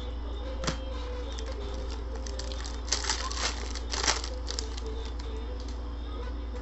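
Foil wrapper of a football trading-card pack being torn open and crinkled in gloved hands: a single tap early on, then a burst of crinkling and tearing through the middle, loudest in two peaks about a second apart.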